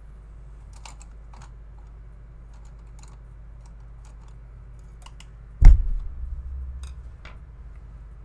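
Hands handling small tools on a hobby desk: scattered light clicks and taps, then one loud low thump about five and a half seconds in, a knock on the desk that booms and dies away over about a second.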